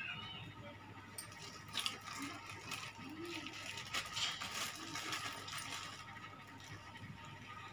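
Steel spoon clinking and scraping against a stainless steel divided plate while pickle is spooned onto it: a scattering of light metallic clicks through the middle seconds.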